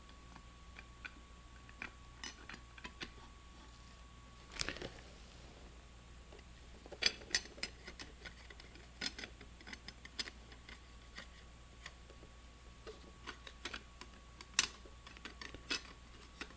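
Scattered light clicks and metal clinks of steel clutch plates and friction discs being set one by one onto a transmission clutch drum, a few louder clinks among them.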